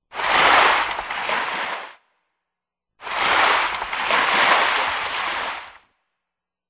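Two separate bursts of rushing noise with no pitch. The first lasts about two seconds and the second, starting about three seconds in, lasts about three; each starts suddenly and fades out.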